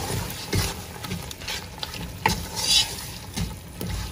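Wooden spoon stirring a thick tomato-and-dry-fish stew sauce in a non-stick pot, with irregular scrapes and knocks against the pan, over a light sizzle from the sauce cooking in oil.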